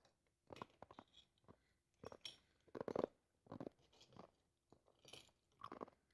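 Ice being crunched and chewed close to the microphone: a string of irregular crisp crunches, loudest about three seconds in.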